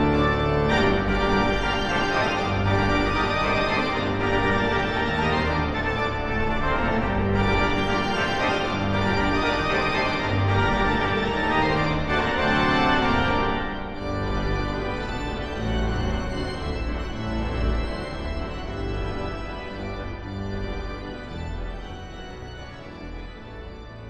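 Pipe organ playing loud, full sustained chords with strong low notes. About fourteen seconds in the bright upper sound drops away and the music grows softer, fading down toward the end.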